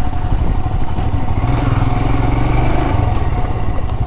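Royal Enfield Himalayan's single-cylinder engine running while riding, heard from the bike's own camera. The engine note grows stronger for about a second and a half in the middle.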